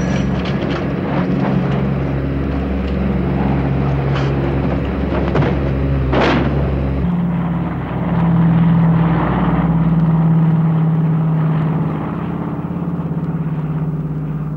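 Propeller engines of a twin-engine transport plane droning, with rushing wind and a brief whoosh about six seconds in. The drone changes in tone about seven seconds in.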